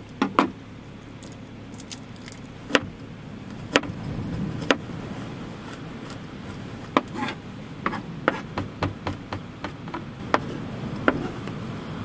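Chef's knife mincing garlic on a cutting board: irregular sharp taps of the blade on the board, sparse at first and coming in a quicker run in the second half.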